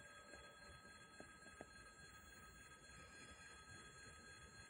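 Near silence: faint steady background hiss with a few thin, steady high tones, and two faint ticks about a second and a half in.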